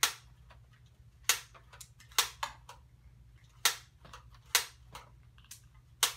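A spring-loaded toy foam-disc launcher firing: a series of six or so sharp clicks, unevenly spaced, one shot after another.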